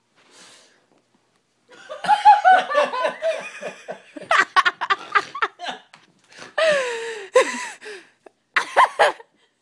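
A person laughing hard in choppy, high-pitched bursts that start about two seconds in, with a long falling squeal of laughter partway through.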